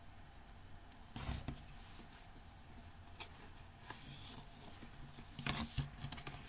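Faint handling of a CD box set's cardboard and paper as its booklet is taken out: a brief rustle about a second in, scattered soft clicks, and a few more knocks and rustles near the end.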